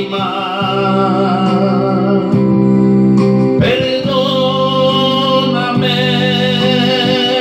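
A man singing a romantic Spanish-language song into a microphone, holding long wavering notes, over his own electronic keyboard accompaniment.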